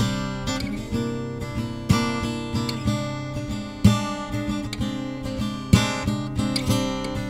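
Acoustic guitar playing an instrumental intro: a strong strummed chord about every two seconds with lighter strokes and picked notes between.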